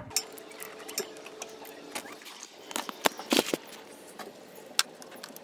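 Irregular clicks and knocks of tools and hands moving about under a car, with a cluster of the loudest knocks a little past the middle.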